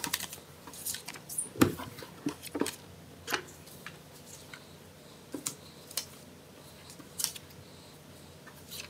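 Paper cards being slid and shuffled by hand on a tabletop: scattered light rustles and taps at an uneven pace, with one duller knock about one and a half seconds in.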